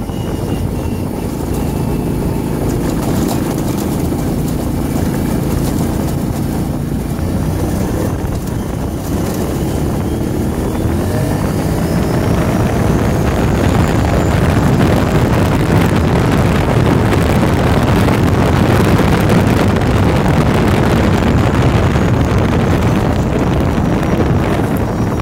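Can-Am ATV engine running as the quad drives along. Its pitch rises as it speeds up between about ten and fourteen seconds in, and it stays louder after that, with wind noise on the microphone.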